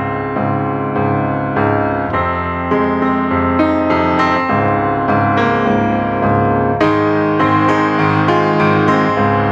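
Background piano music, steady notes played over a sustained chord accompaniment.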